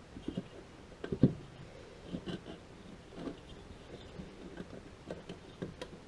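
Small clicks and knocks of chainsaw recoil-starter parts being handled and fitted together, with a sharper knock about a second in and a loud one at the very end.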